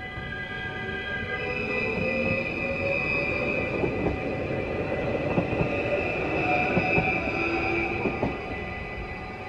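NS electric multiple-unit passenger train passing over the level crossing: a motor whine that rises in pitch, a high squeal from the wheels, and sharp clacks as the wheels cross the rail joints near the middle. The crossing's warning bells ring steadily throughout.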